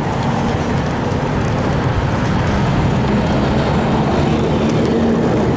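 Steady city traffic noise heard from a moving bicycle, with the low hum of a passing motor vehicle.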